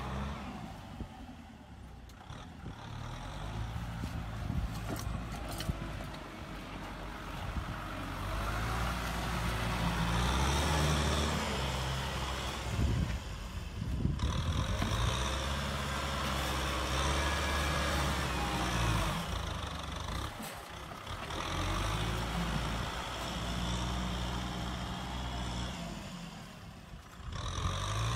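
Kubota tractor's diesel engine running under load as it drags a disc plough and pushes mud with its front blade, its note and loudness shifting as the load changes.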